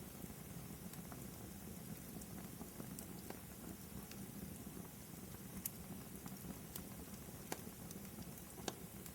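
Fireplace fire crackling steadily under a soft even rush, with sharp pops every second or so at irregular intervals.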